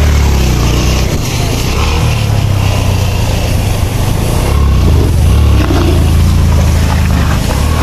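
Motorcycle engine running hard, its revs rising and falling several times.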